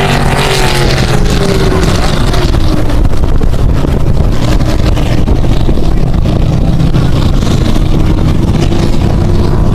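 Powerboat engines running loud and steady, their tone sagging slightly over the first couple of seconds.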